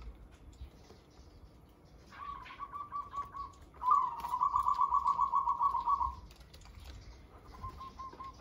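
Caged zebra doves cooing in rapid runs of staccato notes: a short run about two seconds in, a louder, faster trill of coos from about four to six seconds, and another even series starting near the end.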